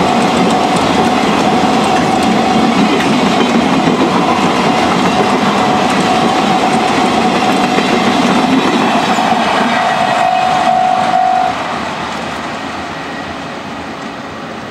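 A long freight train of two-axle Wamu covered wagons rolling past, wheels clicking over the rail joints, with a thin steady high tone over it. About eleven and a half seconds in, the tone stops and the noise drops away as the end of the train passes.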